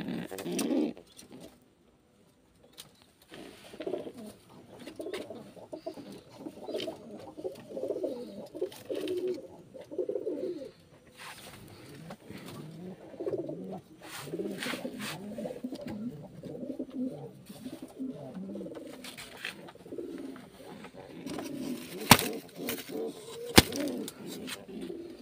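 Domestic pigeon cooing over and over in low, repeated calls, with a brief pause about two seconds in. Two sharp clicks, the loudest sounds, come about a second and a half apart near the end.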